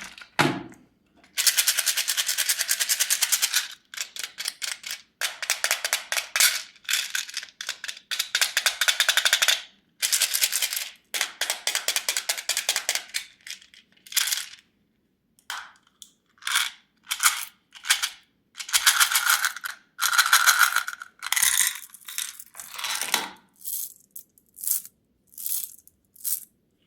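Candy crackling close to the microphone in bursts of rapid fine crackles. The crackles run in dense stretches of two to four seconds at first, then come as shorter separate bursts about once a second.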